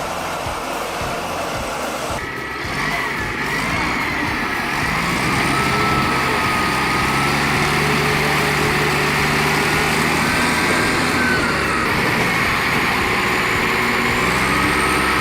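Heavy machinery engine running steadily, with a whining tone that rises and falls; the sound changes abruptly about two seconds in.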